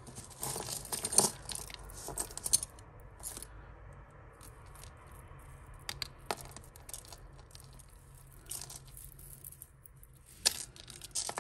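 Metal costume-jewellery chains and pendants clinking and jingling as hands pick through a tangled pile: a busy run of clinks at first, then scattered light ticks, with one sharper clink near the end.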